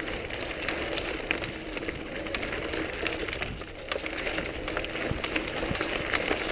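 Mountain bike tyres rolling over dry fallen leaves on a dirt trail: a steady crackling rustle with many small clicks and rattles from the bike.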